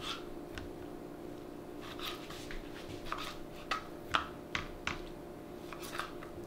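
Kitchen knife chopping raw pheasant breast on a plastic cutting board: about a dozen short, irregular taps of the blade striking the board. A steady low hum runs underneath.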